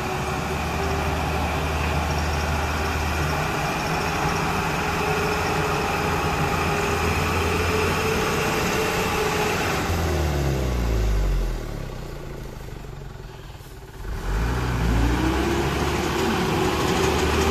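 Mitsubishi Fuso truck's diesel engine working hard as the truck climbs through deep mud. About ten seconds in the revs fall away and the sound drops quieter for a couple of seconds, then the engine revs back up.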